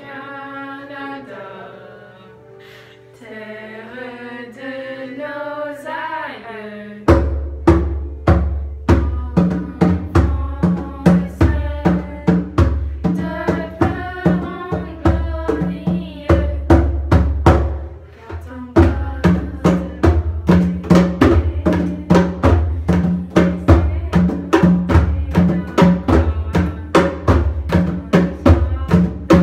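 A national anthem plays with a sung melody. About seven seconds in, hand-played congas and a hand drum come in loudly with a steady rhythm over it. The drumming drops out briefly around the middle, then picks up again.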